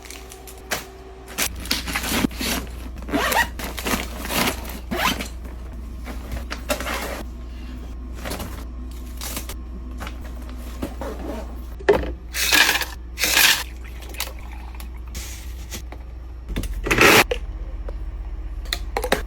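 Kitchen food-preparation sounds: scattered clicks, scrapes and rustling of containers and packaging over a steady low hum, with a few louder noisy bursts about twelve seconds in and again near the end.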